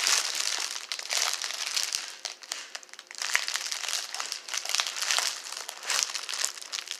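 Plastic bubble mailer crinkling in bursts as it is handled and pulled at.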